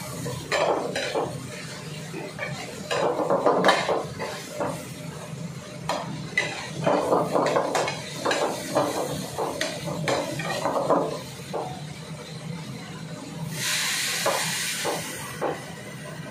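Metal ladle scraping and clanking against a steel wok, stirring fish and tomatoes over a gas burner. About three-quarters of the way in, liquid poured into the hot wok sizzles with a steady hiss for a couple of seconds.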